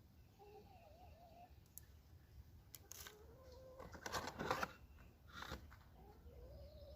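Faint handling noises as fishing lures and their plastic packaging are taken out of the box: short crinkles and clicks in a few bursts, the loudest about four seconds in. Faint wavering tones sound in the background.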